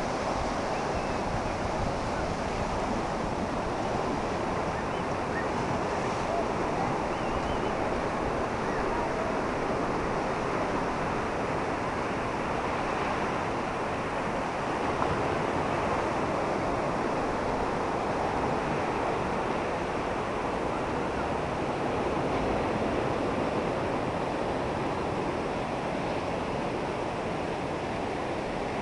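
Ocean surf washing steadily onto a rocky Atlantic beach, with wind buffeting the microphone.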